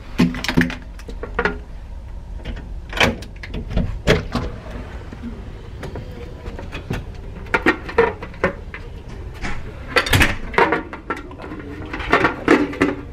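Scattered knocks, clicks and rustling from a handheld camera and things being handled in a small room, over a steady low hum.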